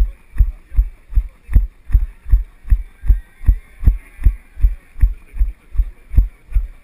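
A runner's own strides picked up through a body-worn GoPro: steady low thumps, about two and a half a second, each with a faint high tick.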